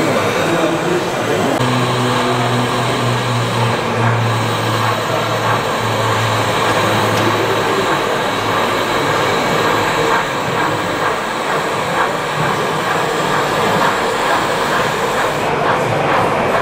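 Model trains running on a layout: a steady rolling rail noise, with a low hum for several seconds early on.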